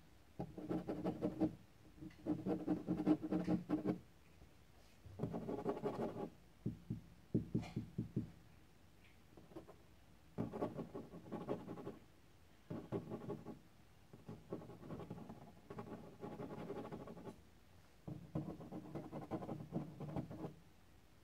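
A kitten purring close by, in rhythmic bursts of about one to two seconds, one with each breath, with short pauses between.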